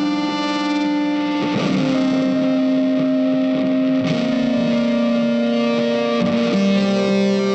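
Background music led by guitar with effects: held chords that change every two seconds or so.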